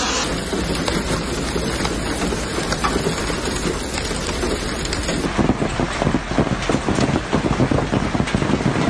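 Hail pelting down hard, a dense clatter of stones striking the ground and vehicles, turning louder and more uneven about five seconds in.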